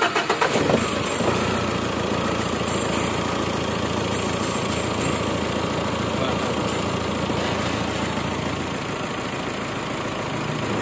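Mitsubishi Strada Triton's four-cylinder common-rail diesel engine cranking on the starter for under a second, then catching and idling steadily. This is the first start after new injectors and a new ECU were fitted and the injector codes registered.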